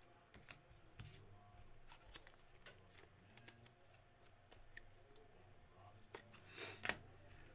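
Faint clicks and soft rustles of trading cards being handled and shuffled, with a short louder rustle near the end.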